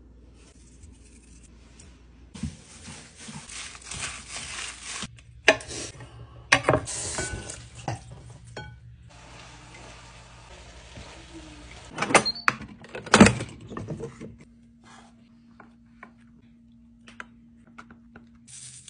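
Kitchen cooking sounds: a frying pan sizzling in stretches while food is stirred, with chopsticks and utensils clattering against the pan and dishes. There are two sharp knocks about halfway through, then softer scraping and clicks as rice is scooped with a paddle.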